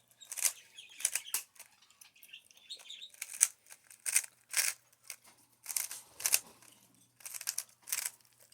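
Rubik's cube being turned fast by hand: an irregular run of sharp plastic clicks and clacks as the layers snap round, often two or three in quick succession.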